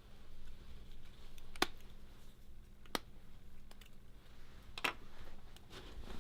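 Three sharp, light clicks, spaced a second or two apart, over a faint low hum: small hard parts or tools being handled on a workbench.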